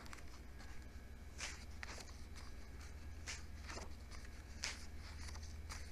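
Pages of a large book being turned and handled: a handful of soft, brief paper rustles over a faint steady low hum.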